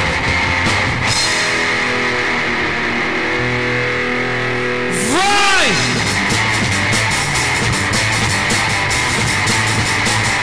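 Underground thrash/rock power trio playing an instrumental passage on distorted electric guitar, bass and drum kit, recorded to cassette tape. About a second in the drums drop out, leaving held guitar and bass notes; a little before halfway a note swoops up and back down, and the full band with drums and cymbals comes back in.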